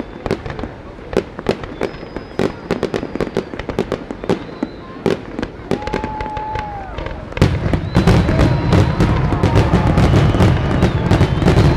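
Fireworks display: a quick run of sharp bangs and crackles from bursting aerial shells, with a few thin whistles. About two-thirds of the way through, a loud steady low rumble sets in under the bangs.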